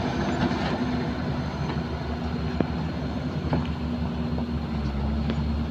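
Heavy diesel engine of the excavator or dump truck running steadily with a low hum, with a few sharp knocks.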